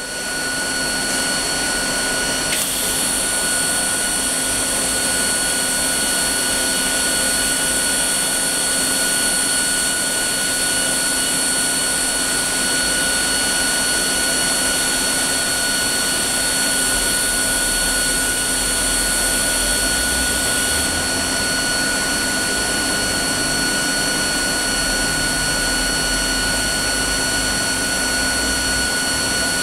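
Automatic fitting welding machine running with its welding arc lit: a steady hiss with a steady high whine. A brighter, higher hiss starts about two and a half seconds in and drops away about twenty seconds in, and a low rumble comes in during the last third.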